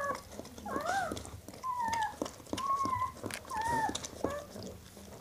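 Newborn puppy crying: about six short, high squeaky mewing calls, some arching up and down, others falling, with a few soft clicks between them.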